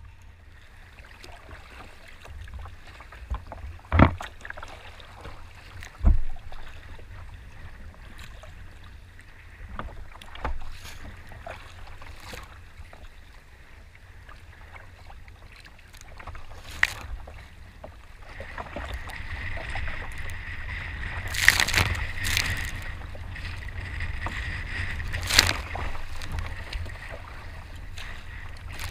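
Choppy sea water sloshing and splashing around a sea kayak's hull, with a few sharp slaps and knocks against the boat, the strongest about four and six seconds in. From about eighteen seconds on, the rush of water grows louder as the kayak runs through breaking waves.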